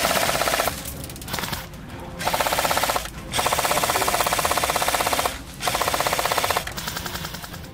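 Airsoft electric light machine gun firing full-auto in several bursts, its gearbox clattering out a rapid, even rattle of shots; the longest burst lasts about two seconds.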